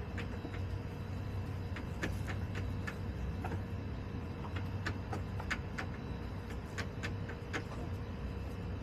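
Chickens pecking and scratching in dry straw litter, heard as irregular light ticks and taps, most of them in the middle, over a steady low hum.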